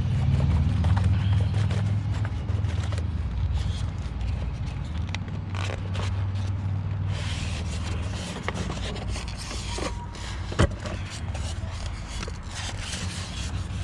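A new Pioneer TS-G400 car speaker being taken out of its packaging: scraping and rustling of handled packing material, with a low rumble in the first half and a sharp click about ten and a half seconds in.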